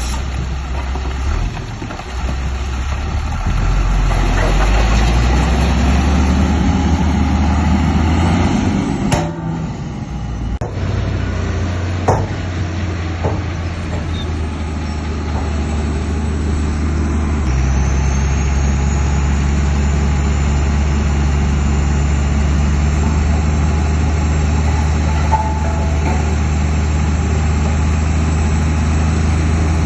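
Diesel engine of heavy earthmoving machinery running. A sharp knock comes a little before halfway, and a little past halfway the engine note steps up and then holds steady.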